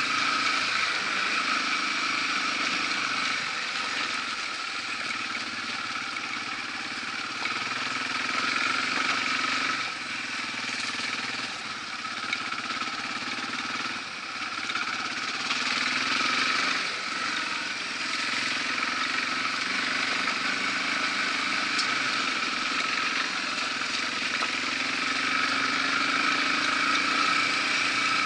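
Yamaha TW200's single-cylinder four-stroke engine running while the bike rides over a gravel and leaf-covered dirt road. Its level dips for a few seconds about a third of the way in, then picks up again.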